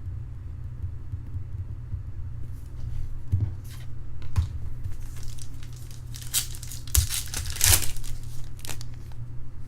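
Foil trading-card pack wrappers being torn open and crinkled, in irregular crackling bursts that grow busier and louder from about halfway, over a steady low hum.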